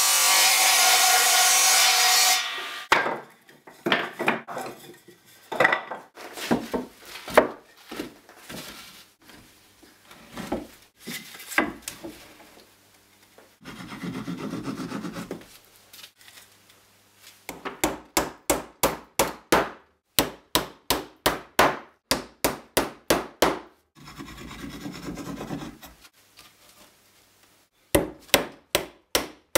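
A table saw cutting through an old barn board for about two and a half seconds, then wooden pieces knocked and set down and a wood glue bottle squeezed out onto the boards. Later come runs of sharp, even hammer blows, about two a second, driving nails into the boards.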